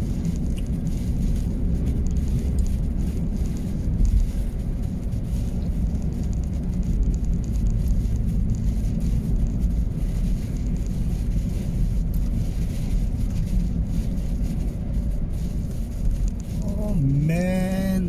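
Steady low rumble of engine and tyre noise heard inside a vehicle's cab while driving at road speed.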